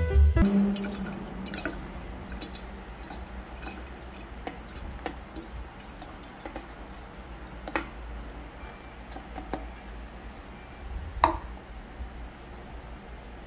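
Wet makgeolli rice mash being scooped into a glass jar: soft dripping and squelching, with scattered light clicks and a few sharper ones, the loudest near the end.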